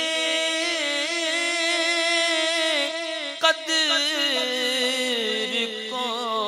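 A man singing a naat into a microphone: one long drawn-out phrase with a wavering, ornamented melody. There is a short click about three and a half seconds in.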